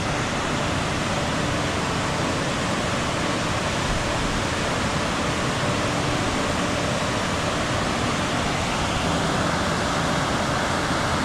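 Big Amnicon Falls, a waterfall on the Amnicon River, pouring with a steady, even rush of water noise.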